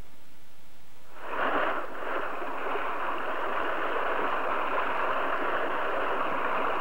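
Pumped stream water starts gushing from the open end of an irrigation pipeline. It comes on suddenly about a second in and then pours steadily.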